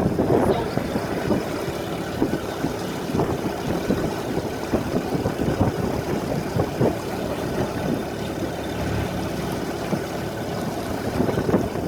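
Motorboat engine running steadily under way.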